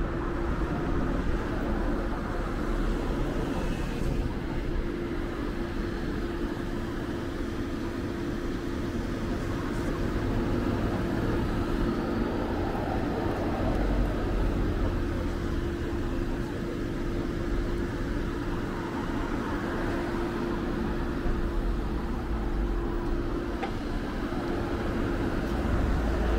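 Road traffic at a junction: cars driving past, with louder passes about halfway through and near the end, over a steady hum.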